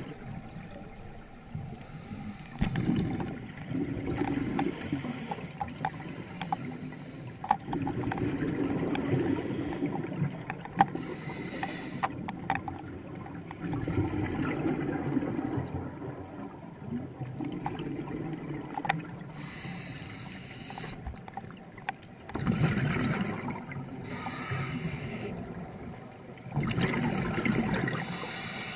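Scuba diver breathing through a regulator underwater: a short hiss on each inhale and a longer bubbling rumble on each exhale, repeating every several seconds.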